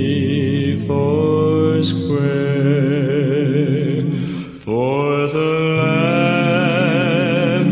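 A cappella gospel quartet holding sustained chords in close vocal harmony, the voices wavering with vibrato. The chord breaks off briefly about four and a half seconds in, then a new chord swells in and is held.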